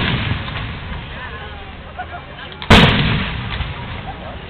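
Aerial fireworks shells bursting. The tail of one boom rolls off at the start, and a second loud boom comes a little under three seconds in, rumbling away after it.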